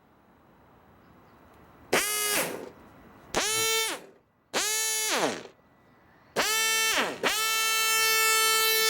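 Pump-fed car air horns sounding five blasts, each sagging downward in pitch as it dies away, the last one held about two seconds. The owners take this as showing the pump works and the horns themselves are at fault; they later find transmission fluid inside them.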